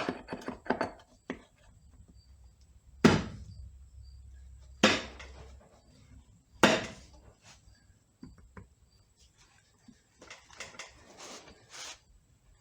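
Three sharp knocks about two seconds apart, struck at a stuck part of a C6 automatic transmission to break it loose, followed by lighter knocking and clatter near the end.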